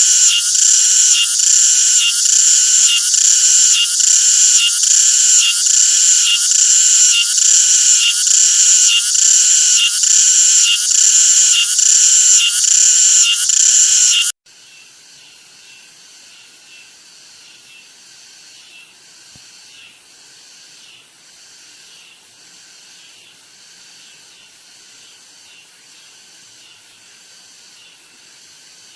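Cicadas singing: a loud, high-pitched buzzing that pulses about twice a second. About halfway through it cuts off suddenly and gives way to a much fainter, more distant cicada chorus with the same pulsing rhythm.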